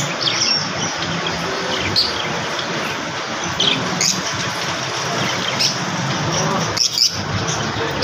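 Lovebirds chirping, with short high chirps scattered through, over a steady low background hum.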